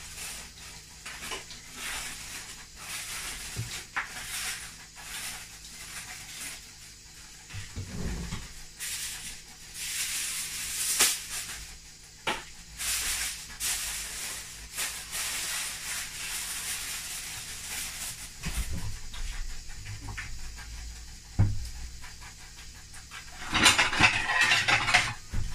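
Kitchen handling sounds: aluminium foil crinkling as it is pressed over a bowl, then intermittent rustling and small knocks, with a louder stretch of rustling near the end.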